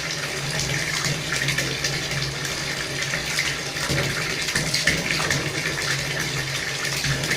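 Water running steadily from a tap and splashing into a sink, over a steady low hum.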